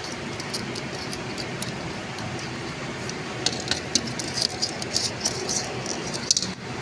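Small plastic clicks and taps, mostly in the second half, as a smoke detector is taken apart by hand, with the parts held fast and stiff. Steady background noise runs under them.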